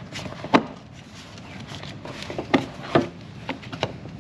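Irregular sharp clicks and knocks as a fuel line fitting is pressed and worked onto a new fuel pump. The loudest come about half a second in and twice near the three-second mark, with smaller taps between.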